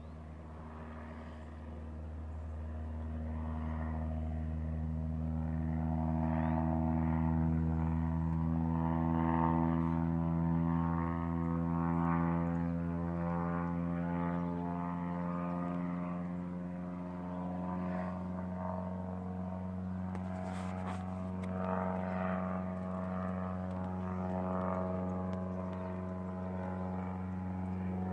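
A floatplane's propeller engine drones steadily. It grows louder over the first several seconds, and its pitch rises slightly as it goes on.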